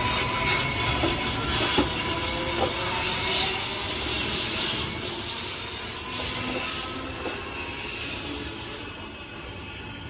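Electric suburban train running on the track close by, its wheels squealing, with a few sharp clicks from the wheels. The noise drops away about nine seconds in.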